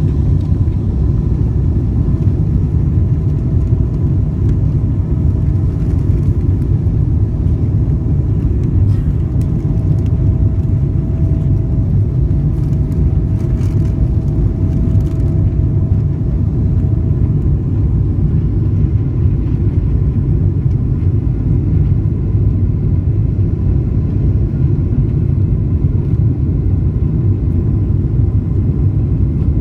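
Cabin sound of a United Airlines Boeing 777-200 climbing out just after takeoff: the steady, deep rumble of its twin Pratt & Whitney PW4000 turbofans at climb power. A faint steady whine rides on top and fades out a little past halfway.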